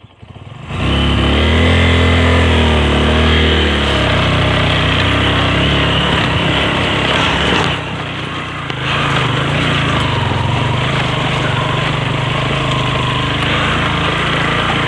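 Motorcycle engine coming on suddenly about a second in, revving up and down for a few seconds, then running loud and steady with a brief drop near the middle.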